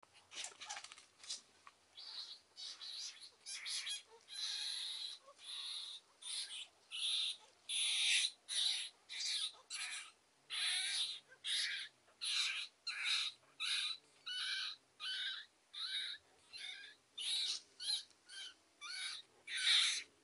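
Rat squealing over and over while caught in a cat's jaws: a run of short, shrill squeals, a little more than one a second, each under half a second.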